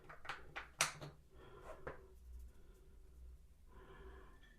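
Faint clicks and light rustling of small toilet-seat mounting hardware (square washers and bolts) being handled and fitted, with a few sharp clicks in the first second.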